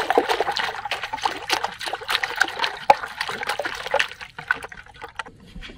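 Empty plastic bottles splashing into shallow water and bobbing, with many small splashes and drips that die away near the end.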